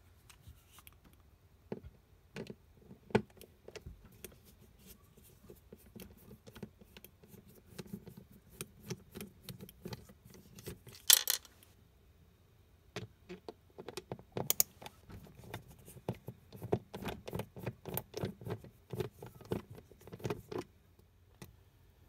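Screwdriver undoing the four small mounting screws of a wall-mounted socket plate: a long run of small irregular clicks and scrapes of metal on metal and plastic, with a few sharper clicks standing out.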